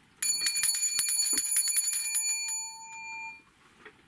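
Small hand bell (a theatre bell) shaken rapidly for about two seconds, then its ring dying away: the signal that the puppet show begins.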